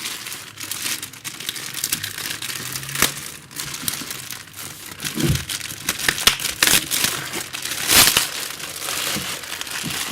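Packaging crinkling and rustling continuously as it is handled and pulled off the pickup winder by hand, with a couple of dull knocks about five and eight seconds in.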